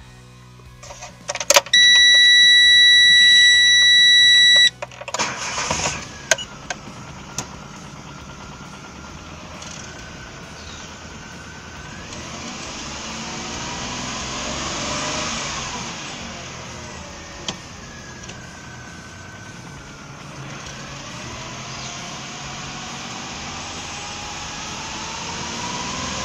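A loud steady electronic beep lasts about three seconds. About five seconds in, the Chery QQ's engine cranks and catches on its first start after the camshafts were refitted and retimed. It then runs, revving up and down a few times.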